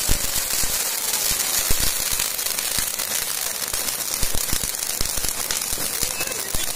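Ground fountain fireworks (anar) hissing steadily as they spray sparks, with many sharp, irregular crackles and pops.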